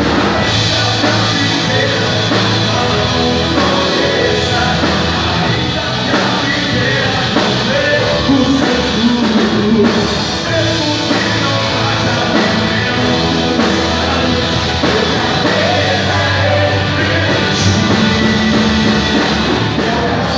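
Live gospel worship band playing a rock-styled song, with drum kit and a singer's voice over the band.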